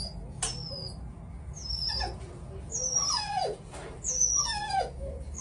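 An animal's high whining cries, one about every second, each falling in pitch.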